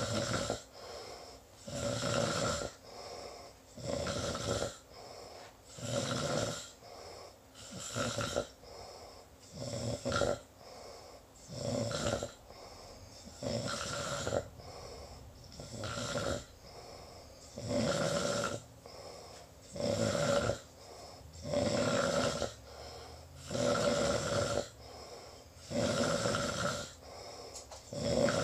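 A sleeping person snoring in a steady rhythm, a loud snore about every two seconds with a softer breath sound between each.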